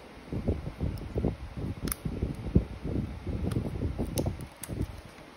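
Moving air buffeting the microphone in irregular low rumbling gusts, with a few faint light clicks.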